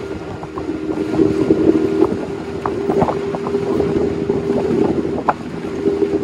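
Small fishing boat's engine running steadily while underway, with wind buffeting the microphone and a few light knocks.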